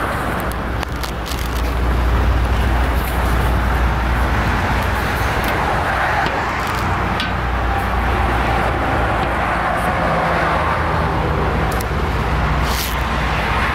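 Steady low rumble of outdoor background noise, with a few short sharp clicks and knocks as the steel smoker door and its spring handle are handled. The clearest click comes near the end.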